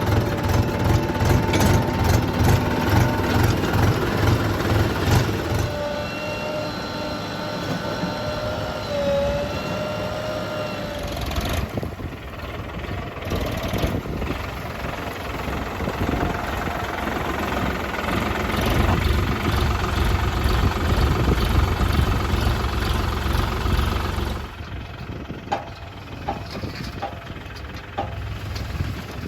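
Heavy diesel engines of a backhoe loader and tractors running at work. A deep throbbing beat is loud for the first few seconds and again from past the middle, a thin high whine is heard in between, and it goes quieter for the last few seconds.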